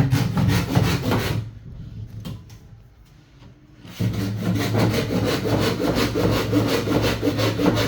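Saw cutting wood in rapid, even strokes: a short burst at the start, a quieter stretch, then steady continuous sawing from about halfway through.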